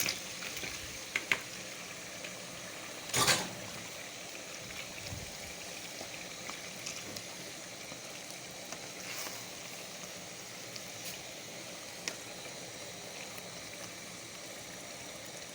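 Pot of tomato stew simmering and bubbling steadily, with a few light clicks and one brief louder noise about three seconds in.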